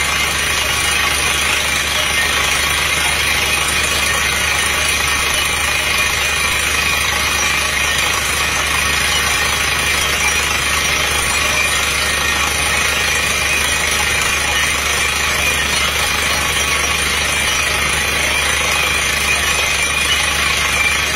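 PDTHR 200 truck-mounted water-well drilling rig drilling a borehole with compressed air: engine, air compressor and down-the-hole hammer together make one steady, loud machine noise.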